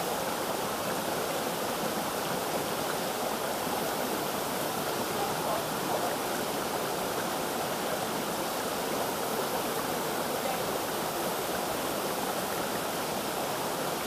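Waterfall water rushing steadily, an even, unbroken wash of noise.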